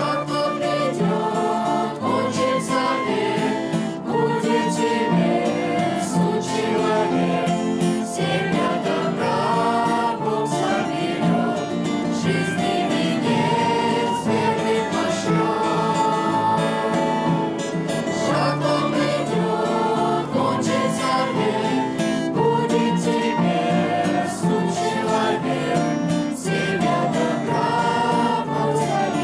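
Choir singing a Russian-language hymn with guitar accompaniment.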